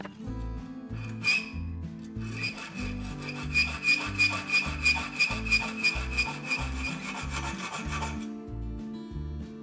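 Hacksaw cutting leaf-spring steel clamped in a bench vise. One stroke comes about a second in, then steady back-and-forth strokes at about three a second, each with a metallic ring, which stop shortly before the end. Background music with a steady beat plays underneath.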